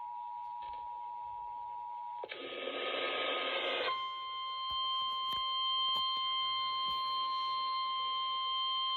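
Sage ENDEC emergency alert: the EAS two-tone attention signal ends about two seconds in. Then comes a burst of static, and about four seconds in the steady 1050 Hz NOAA Weather Radio warning alarm tone begins, with a few faint clicks over it.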